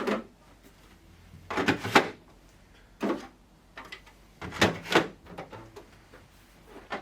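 Plastic fridge door shelves being slotted back onto the inside of the fridge door: a series of short knocks and clatters in several groups, with quiet between.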